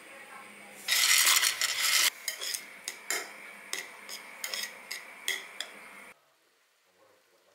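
Metal cutlery clinking and scraping against a ceramic bowl as cooked carrots and broccoli are cut and stirred, a run of sharp clicks. Before the clicks, starting about a second in, comes a loud noisy stretch lasting about a second. The sound stops abruptly about six seconds in.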